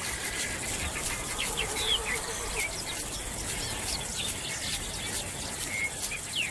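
Outdoor savanna ambience with birds chirping: short, downward-sliding calls come and go over a faint, steady background.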